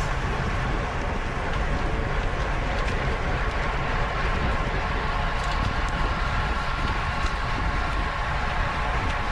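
Wind rushing over the microphone of a rider's camera during a road bike race, a steady low rumble of noise with a faint steady whine.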